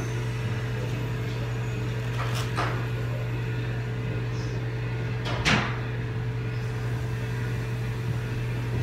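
A steady low mechanical hum, with two brief noises, the louder about five and a half seconds in.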